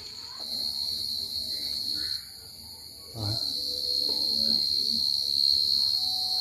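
Field crickets calling at night: a shrill, steady high-pitched trill. It breaks off about two seconds in and comes back a second later, louder. This is the males' song, which hunters follow to find the crickets.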